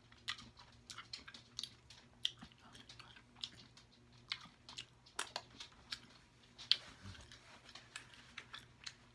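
Close-up chewing of deshelled king crab meat: quiet, irregular mouth clicks and smacks, with a faint steady low hum underneath.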